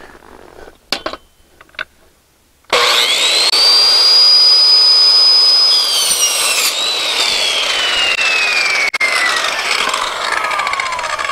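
Corded circular saw with a Diablo Steel Demon 7¼-inch metal-cutting blade spinning up to a high whine and cutting through 1¼-inch galvanized steel tubing, with a short harsh grind around six seconds in. The motor is then released and its whine falls steadily as the blade coasts down.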